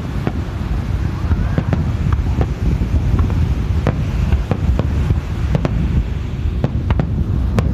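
Aerial firework shells bursting, heard as an irregular scatter of sharp pops and cracks. A steady low rumble of wind on the microphone is the loudest sound throughout.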